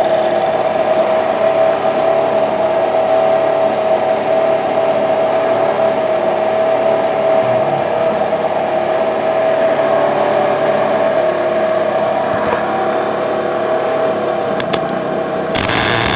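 A steady machine hum holding one even tone. Near the end, a MIG welder strikes its arc on the steel tank and a loud, even welding crackle starts, with a brief break.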